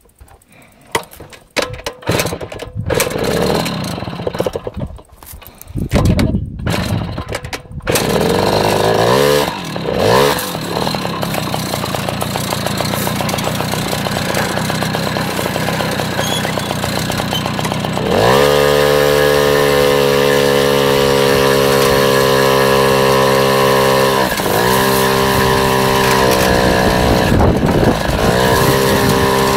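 Small motorbike engine running: after several seconds of uneven knocks and rustles it revs up about eight seconds in, and from about 18 s on it runs at a steady high buzz, easing off briefly twice.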